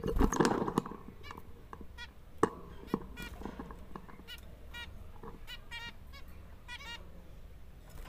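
Zebra finches giving short nasal beeping calls, many in quick succession, more than one bird at a time. A burst of rustling noise near the start and a couple of sharp clicks a few seconds in.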